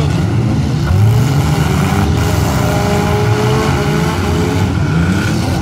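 Engines of several compact demolition-derby cars running and revving together, their pitches rising and falling over a steady low rumble.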